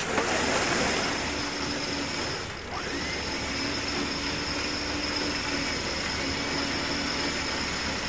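Boat's winch running steadily under load as it hauls a heavy ghost net of tangled fishing net and rope up out of the sea. There is a short break about two and a half seconds in.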